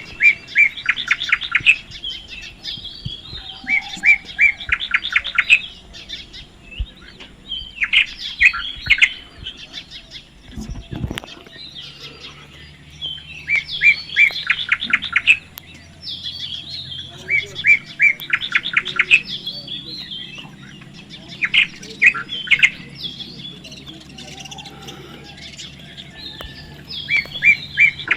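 Baby parrot calling in repeated bouts every few seconds: a few high chirps, then a quick run of about six to eight sharp chirps.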